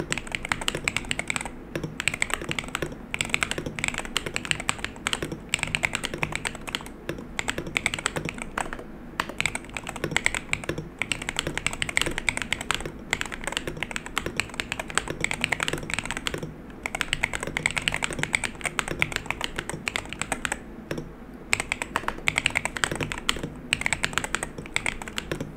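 Typing on an Aula Hero68 keyboard with Leobog Sea Emperor (Neptune) switches: a dense, rapid run of key clicks, stopping briefly a few times.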